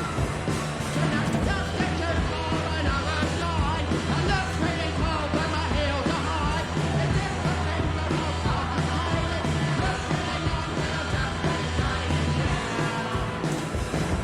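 Punk rock song with a singer over the full band, loud and continuous.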